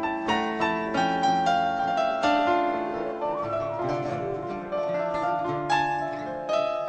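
Instrumental break in an Algerian chaabi song: a melody of quick plucked-string notes, each with a sharp attack that rings on, at an even, lively pace.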